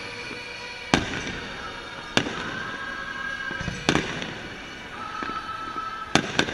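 Fireworks shells bursting in sharp bangs, five of them at uneven gaps, the last two in quick succession near the end, with music playing underneath.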